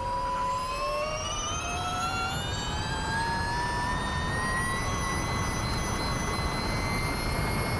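Ducati V21L MotoE electric racing motorcycle accelerating hard: the electric motor's whine rises steadily in pitch as speed climbs, over the rush of wind on the onboard microphone.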